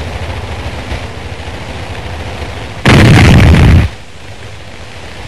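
A single artillery gun shot on an old film soundtrack: a low rumble, then about three seconds in a sudden, very loud blast that lasts about a second before dying back to the rumble.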